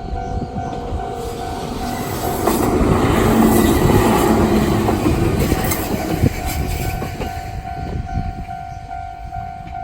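Japanese railway crossing warning bell with the older standard-type electronic tone, ringing about two to three times a second. A train passes through the crossing, its wheel and car noise swelling loudest a few seconds in and partly drowning the bell before fading.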